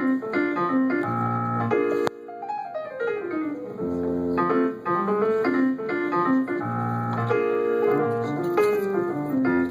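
Piano playing the instrumental introduction to a song: held chords, broken about two seconds in by a quick run of falling notes.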